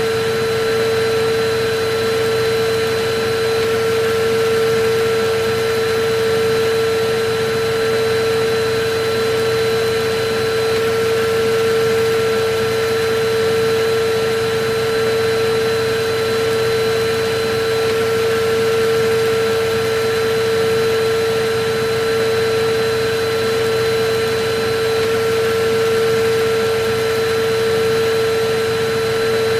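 Electric vacuum cleaner running steadily: a constant mid-pitched motor whine with fainter higher tones, over an even rush of air.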